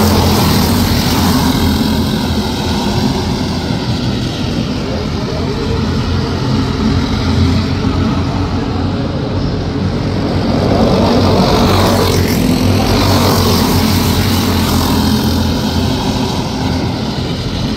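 A field of dirt-track racing go-karts running at speed: a steady drone of many small engines, swelling and bending in pitch as karts pass close about eleven seconds in.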